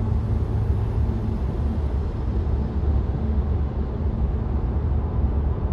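Steady road and wind noise inside a Tesla's cabin at freeway speed, about 70 mph, mostly a low tyre rumble.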